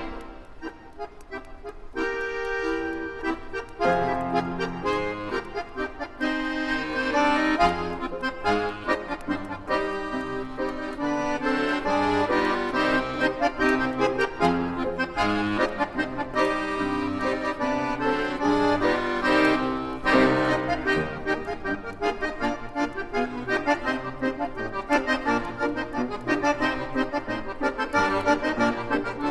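Instrumental music on an electronic keyboard: an old pop melody played in a reedy, accordion-like voice over a bass line.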